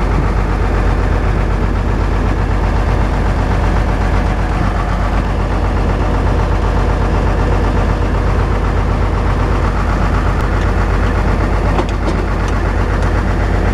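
Case 1070 Black Knight tractor's diesel engine idling steadily, with a deep even rumble. A few faint clicks come near the end.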